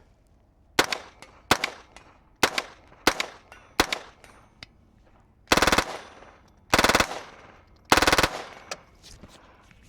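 Suppressed .22 LR AR-style rifle (CMMG AR-22 build with a Lone Wolf Arms Eliminator22 suppressor) fired five single shots at a steady pace, then three short rapid-fire bursts, each loud and only a fraction of a second long.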